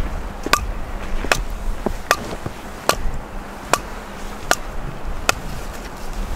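Wood being chopped with a hatchet: seven sharp, evenly spaced strikes, about one every 0.8 s, each with a short ring.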